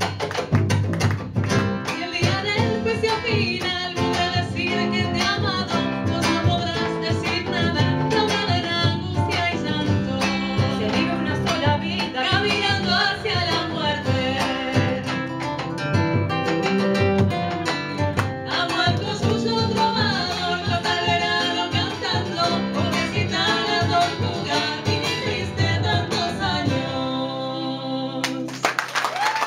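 Two women's voices singing a duet over acoustic and electric guitar in a live Argentine folk song in escondido rhythm. Near the end the song closes on a held final note.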